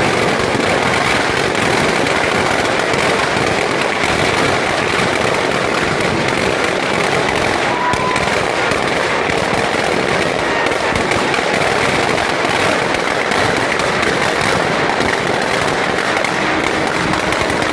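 Firecrackers packed inside a burning Ravana effigy going off in a continuous, dense crackle of rapid pops.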